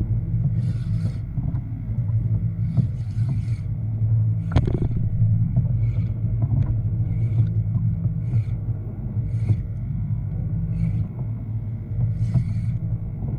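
Steady low rumble of water and wind around a kayak at sea, with short splashing or slapping noises every second or two and one sharp click about four and a half seconds in.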